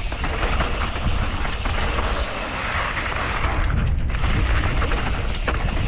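Wind buffeting the microphone during a mountain bike ride, a continuous rumbling rush, with a few brief knocks and rattles from the bike over the trail.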